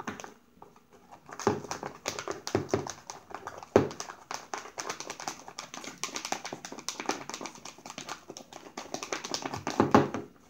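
A plastic stirrer mixing shaving cream into white glue in a plastic tub: rapid scraping, tapping and clicking against the tub's sides, with a few louder knocks.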